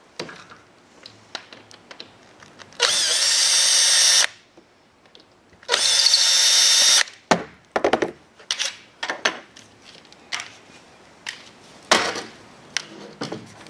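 Panasonic cordless drill/driver running in two bursts of about a second and a half each, backing out the screws that hold the end cap on a survey leveling rod, with a steady high motor whine. Sharp clicks and knocks of the parts being handled follow.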